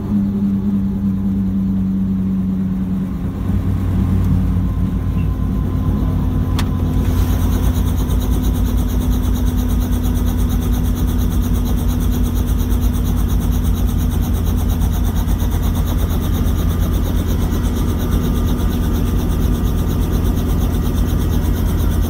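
Helicopter cabin noise: a steady engine and rotor drone with a constant low hum. About seven seconds in, a brighter hiss joins it and stays.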